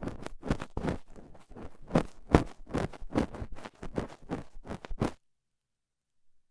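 Stainless steel dental pick scraping and clicking in an ear up close, about four quick scratchy strokes a second, cut off abruptly about five seconds in.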